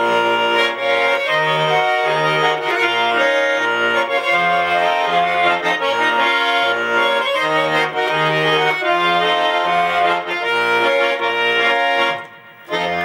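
Garmon (Russian button accordion) playing an instrumental interlude between sung verses: a reedy melody over a steady, evenly pulsing bass-and-chord accompaniment, with a short break just before the end.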